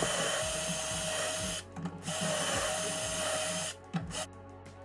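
Ryobi cordless drill boring shelf-pin holes into a cabinet's wooden side wall through a Kreg shelf pin jig: two runs of drilling, each about a second and a half, with a short pause between them, the motor whining steadily while it runs.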